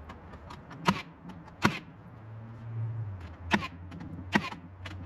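Hammer blows driving nails into a wooden roof joist: four sharp strikes at uneven intervals.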